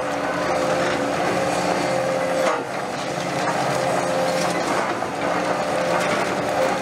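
Caterpillar 330F excavator running under load with a steady hydraulic whine as its crusher jaws close on reinforced concrete, with concrete crunching and cracking.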